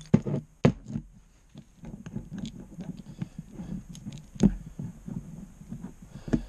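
Steel gear and shaft from a Boxford lathe being handled and fitted into its cast-iron bracket: scattered metal clicks and knocks, the loudest about four and a half seconds in, over low rumbling handling noise.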